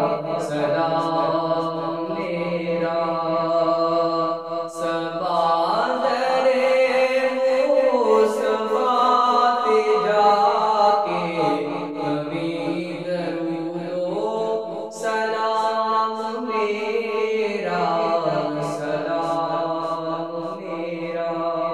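Wordless a cappella vocal chant of the kind used behind a naat or salaam: voices hum long held notes in chords that change every couple of seconds, with no instruments.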